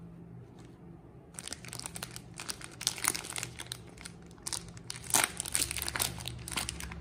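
Printed wrapper of a Palmolive Naturals bar soap crinkling as hands handle it, starting about a second in and continuing in dense bursts, loudest about five seconds in.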